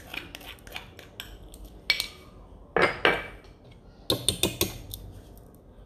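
Spoon clinking and tapping against a mixing bowl while measuring dry ingredients: a few sharp clinks about two and three seconds in, then a quick run of them about four seconds in.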